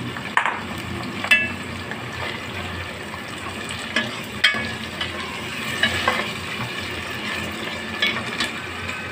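Minced meat and sliced onions sizzling in hot oil in a pot, a steady hiss. A metal ladle stirs and scrapes the mixture, giving short sharp clinks against the pot every second or so.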